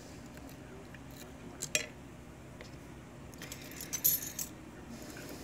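Steel lock pick clicking in the keyway of a Yale pin-tumbler padlock: a sharp click a little under 2 seconds in, then a short run of metallic clinks and scraping about 4 seconds in as the pick comes out of the keyway.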